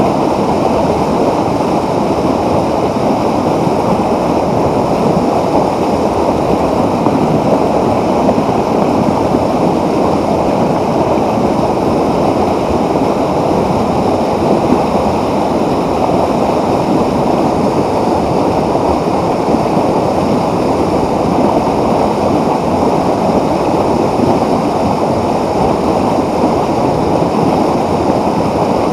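A mountain torrent rushing, steady and loud.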